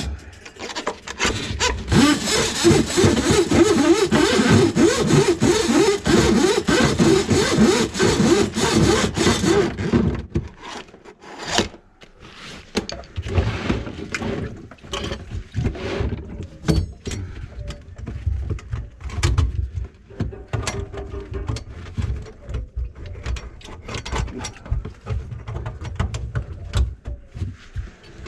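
Drain-cleaning machine running for about eight seconds, its cable churning in a kitchen sink drain line plugged with grease, then stopping. Scattered clanks and scrapes follow.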